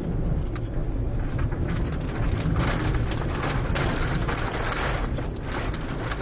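Storm wind buffeting with a steady low rumble, and rain hitting hard, heavier from about two and a half seconds in.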